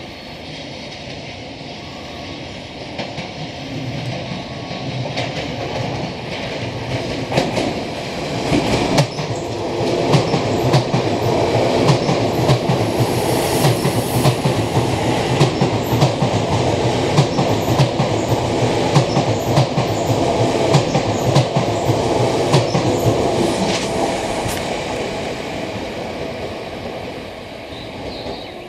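Keisei AE-class Skyliner electric train passing through a station without stopping. It builds up over the first several seconds, is loudest in the middle with the wheels clicking over rail joints, and fades near the end.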